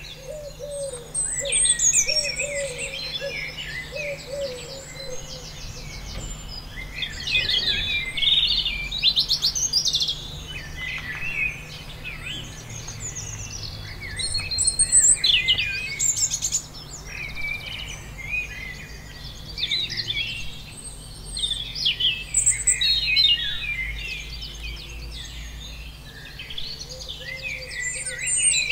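A chorus of several songbirds singing, with quick chirps and trills overlapping. A lower, repeated falling call sits underneath for the first few seconds.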